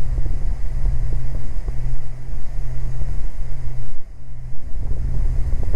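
Cabin drone of a Beechcraft G58 Baron's two six-cylinder Continental IO-550 engines and propellers in the climb after takeoff, the props pulled back to climb RPM. It is a steady low hum that goes briefly quieter about four seconds in.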